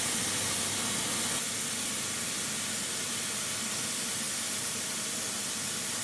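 Vacuum cleaner running, sucking air into a car's exhaust pipe through holes in the muffler junction: a steady hiss of rushing air, dropping slightly in level about a second and a half in.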